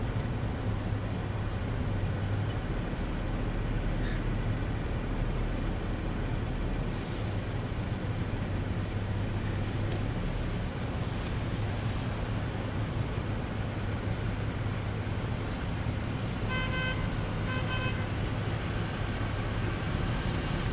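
Steady city street traffic rumble with vehicle engines running, and a car horn honking twice in short blasts near the end.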